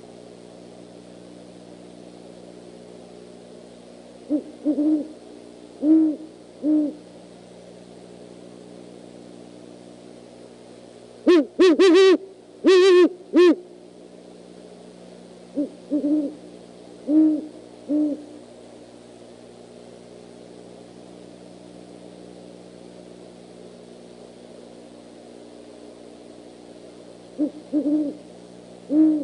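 Great horned owls hooting back and forth: bouts of short, deep hoots with long gaps between them. One bout about halfway through is louder and harsher than the others.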